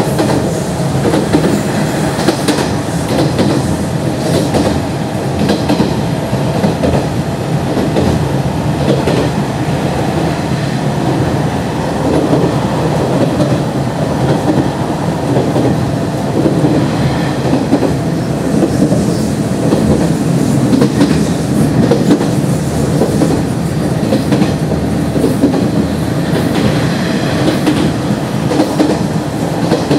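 Running noise inside a Nishitetsu 5000 series resistance-controlled electric train at speed: a steady rumble of wheels on rail with a clickety-clack of rail joints and a steady motor hum.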